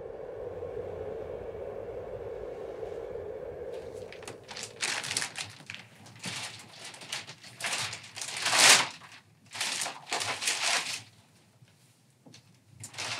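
A low steady hum for about the first four seconds. Then a run of irregular short rustling and clattering noises, loudest around the middle and ending a couple of seconds before the close, as someone works at a kitchen counter.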